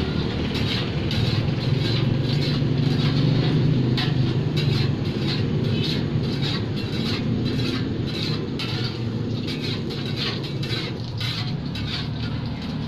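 Metal spatulas scraping and clinking on a large flat frying pan while an egg martabak is turned in hot oil. Many short clinks come throughout, over a steady low rumble.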